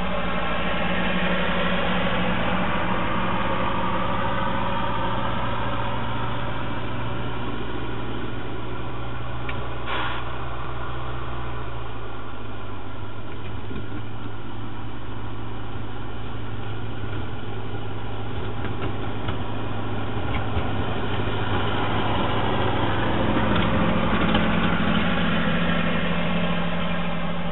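Ferguson TEA 20 tractor's four-cylinder petrol engine running steadily, its pitch shifting as it works, growing louder near the end as the tractor passes close by. A short clank about ten seconds in.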